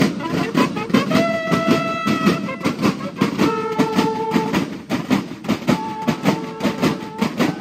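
Marching drum and bugle band (banda de guerra) playing: rapid, steady drumming on snare and bass drums, with bugles sounding three long held notes, each about a second long.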